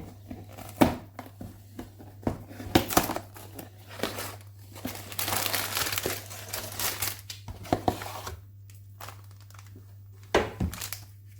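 A LEGO set's cardboard box being opened and its plastic parts bags handled, crinkling and rustling in irregular bursts, with a denser run of crinkling midway. A steady low hum lies underneath.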